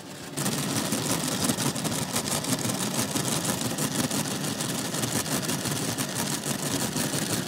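Steady mechanical whirring and rattling from an HO scale model train running close to the microphone. It starts abruptly about half a second in.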